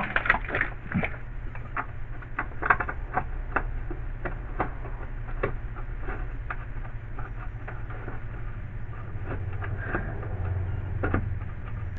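Scattered light clicks and taps of hands working a bolt and the wiper housing into place among wiring harnesses, over a steady low hum.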